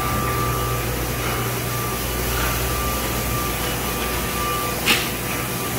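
Steady hum of running factory machinery, with a thin steady whine over it that stops just before a single sharp clack near the end.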